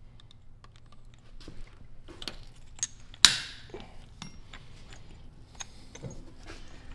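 Small metal parts clicking and tapping irregularly as lunchbox locker pieces are worked into a differential carrier, with one sharp metallic clank a little over three seconds in that rings on briefly.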